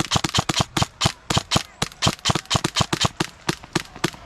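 Airsoft guns firing a rapid, irregular string of sharp cracking shots, roughly eight a second, from more than one gun in an exchange of fire.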